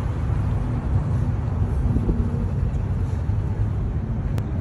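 City street traffic noise, a steady low rumble of passing cars, with one brief sharp click near the end.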